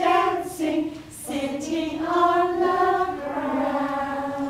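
A group of adults singing a children's song together, the melody moving through several notes and then holding one long note near the end.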